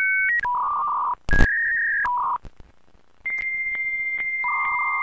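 Dial-up modem connection sound effect: telephone dialing tones and a short loud burst of static about a second in. Then a long steady high answer tone with regular clicks, joined near the end by a lower warbling data tone.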